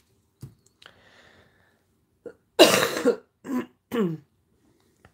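A woman coughing and clearing her throat: one loud burst about two and a half seconds in, then two shorter ones. Before it, a faint rustle of card stock being handled.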